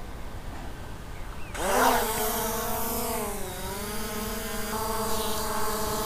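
F11S 4K Pro quadcopter drone's motors spinning up about a second and a half in as it takes off, then a steady whine of the propellers as it climbs and hovers, the pitch dipping briefly in the middle.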